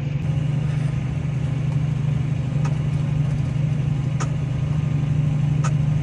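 Tractor engine running steadily under load while ploughing, heard as a constant low drone from inside the cab, with a few faint clicks.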